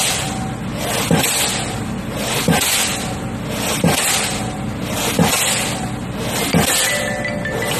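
Crane-suspended pile hammer driving a concrete pile, striking about once every 1.3 seconds, each blow a sharp loud bang. Under the blows runs a steady machinery hum with a hiss between strikes.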